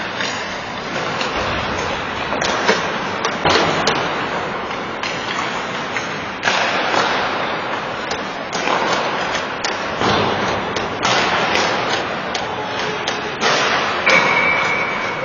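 Ice hockey play: skate blades scraping across the ice, with frequent sharp clacks of sticks, puck and boards. A short high steady tone sounds near the end.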